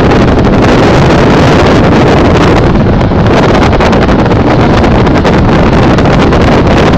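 A 2001 Chevy Tahoe 4WD's passenger-side rear end clicking and popping on deceleration, under loud road and wind noise with heavy wind buffeting the microphone. The cause is unknown to the owner.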